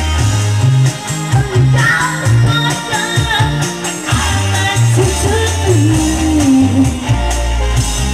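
Music with singing: a song with a heavy bass line, percussion and a sung melody.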